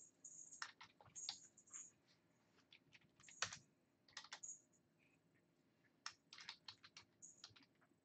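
Faint, irregular keystrokes on a computer keyboard: typing in short runs with brief pauses.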